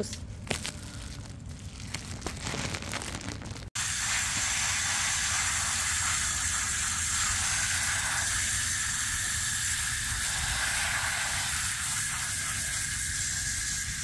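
Garden hose spray nozzle spraying water onto wet feathers and concrete, a steady hiss that starts suddenly about four seconds in. Before it, fainter rustling of a plastic-gloved hand rubbing soapy feathers.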